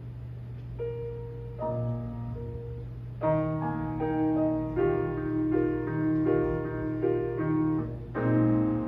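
Grand piano played solo: a single note about a second in, then a soft chord, then fuller, louder chords from about three seconds in, over a steady low hum.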